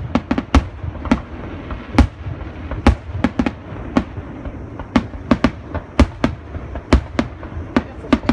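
Fireworks going off in a rapid, irregular string of sharp bangs, two to three a second, with several louder booms among them.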